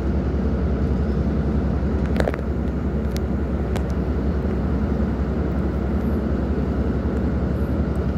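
Ship's engine running steadily under way: a deep drone with a fast, even low throb. A brief knock about two seconds in, and a couple of faint clicks after it.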